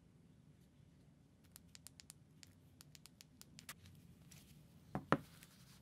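Faint light clicks and ticks of a smartphone being handled in cloth-gloved hands, then two louder knocks in quick succession near the end.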